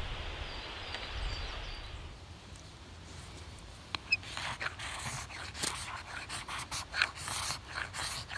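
Ferrocerium rod scraped slowly in short, uneven strokes, a few a second, shaving filings onto tinder and pine resin before striking a fire. Before the strokes begin there is a soft steady outdoor hiss.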